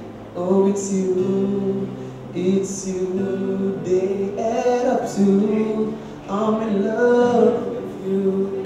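A young man singing a slow pop song into a microphone, with an acoustic guitar accompanying him.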